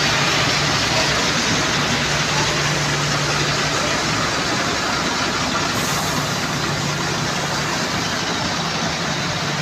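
Diesel bus engine idling: a steady low hum with an even hiss over it.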